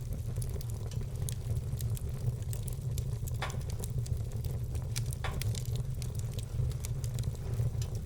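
Wood fire burning in a fireplace, with a steady low rumble under frequent small crackles and two louder pops near the middle.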